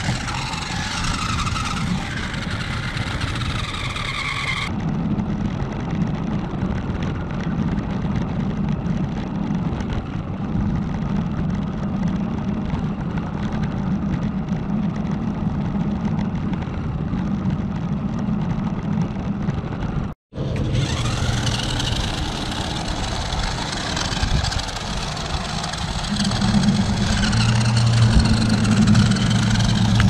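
Small 1/20-scale dual-motor 4WD RC truck running over asphalt: its electric motors and gears give a steady mechanical whir with its tyres rolling on the pavement, changing in pitch as it speeds up and slows down. The sound cuts out for a moment about twenty seconds in.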